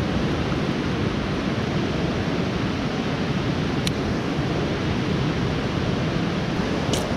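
Steady rush of creek water, with a brief click about four seconds in and another near the end.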